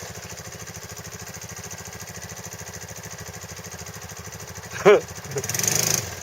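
ATV engine idling with a steady, fast low putter. About five seconds in there is a short loud call, then a louder rush of noise for under a second before the idle settles again.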